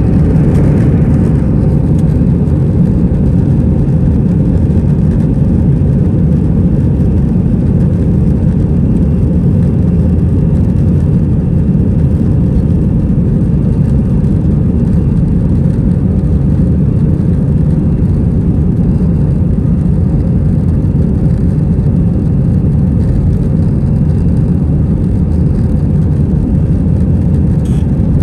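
Cabin noise of an Airbus A320 under high engine thrust: a loud, steady, low rumble of the jet engines and rushing air.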